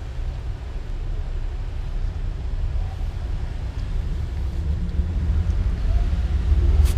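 A steady low rumble that swells slightly toward the end, with one sharp click just before the end.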